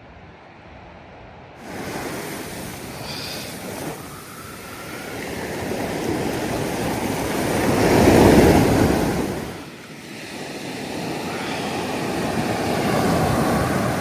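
Sea waves washing onto a beach: surf that cuts in about two seconds in and comes in two long swells, the first loudest about eight seconds in, the second building near the end.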